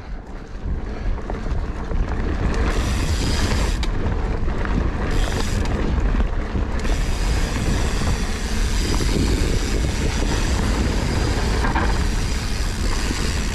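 Mountain bike riding down a dirt forest singletrack: steady tyre and trail noise with wind rushing on the microphone.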